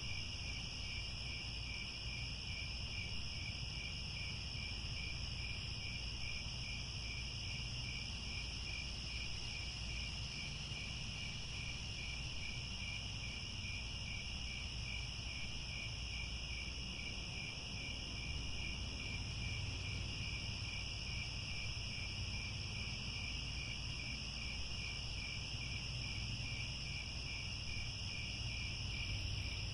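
A chorus of crickets chirping continuously: a steady high-pitched trill with an even, rapid pulse, over a faint low rumble.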